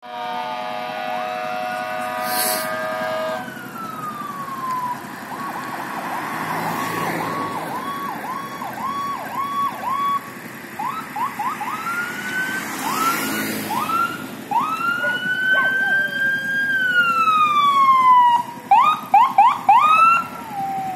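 Fire engine siren approaching, switching between a slow rising-and-falling wail and fast yelping sweeps, getting louder near the end. A steady multi-note horn-like blast sounds for about the first three seconds.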